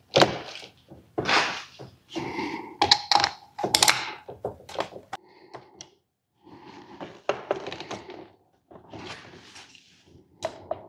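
Irregular clicks, knocks and scrapes of a screwdriver and a plastic two-pole 60 amp circuit breaker being handled as heavy copper wires are fastened into its lugs, with a short lull about halfway through.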